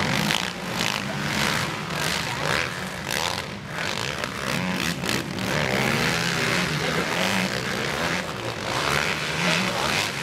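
Several racing quad bikes running on a dirt track, their engines revving up and down and overlapping in a continuous drone.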